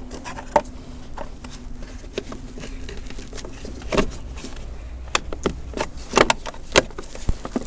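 Gloved hands handling the plastic battery cover and trim in a car's engine bay: scattered clicks and knocks of plastic, the loudest about four seconds in and two more between six and seven seconds in.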